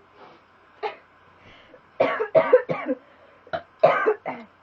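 A woman coughing in short, sharp fits: a single cough a little under a second in, a quick run of three about two seconds in, and more near the end.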